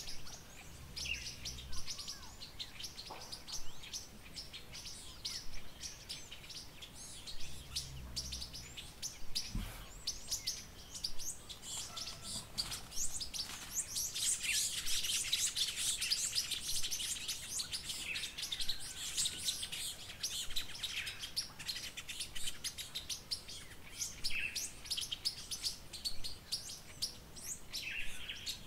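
Many birds chirping and calling together, a dense chorus of short, high chirps and trills that is busiest about halfway through.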